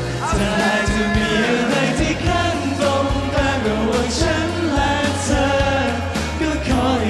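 Male voices singing a Thai pop song over a backing track with a steady beat.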